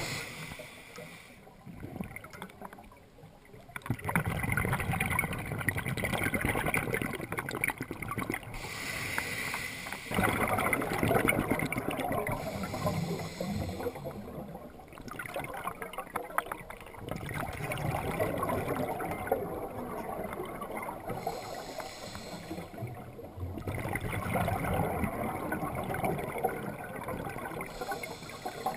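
Water gurgling and sloshing unevenly, swelling and fading over several seconds at a time.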